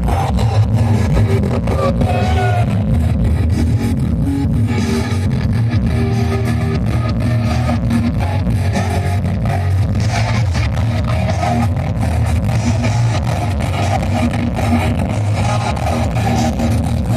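Live heavy metal band playing at full volume: distorted electric guitars, bass and fast pounding drums. Recorded from the crowd, the sound is boomy and muddy, heavy in the bass.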